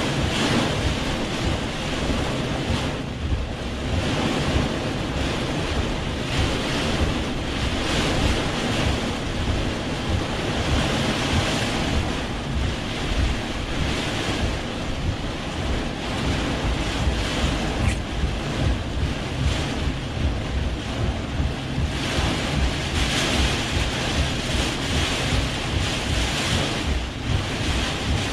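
Heavy rain and gusting wind of a severe thunderstorm beating on a vehicle, heard from inside the cab: a loud, steady rushing noise with a fluttering low rumble and slow swells.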